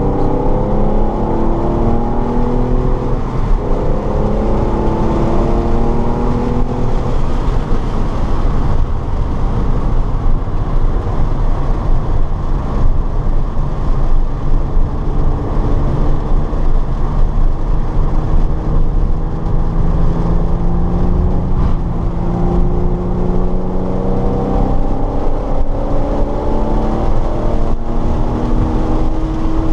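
A car's engine heard from inside, accelerating hard on a race track: the engine pitch climbs and drops back at each upshift early on, holds lower and steadier with loud road and wind noise through the middle, then climbs again near the end.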